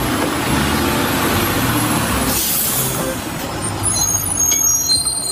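Front-loader garbage truck running, with a burst of air hiss about halfway through. Thin high ringing tones come in near the end.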